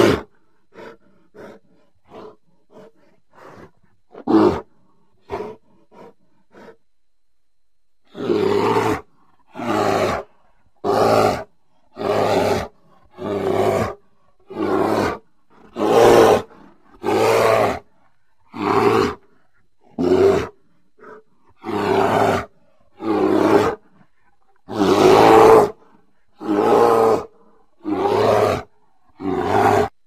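Grizzly bear growling and roaring: first a run of short, soft grunts with one louder growl, then from about eight seconds in a steady series of loud growls, each under a second long, roughly one every second and a bit, one near the end held a little longer.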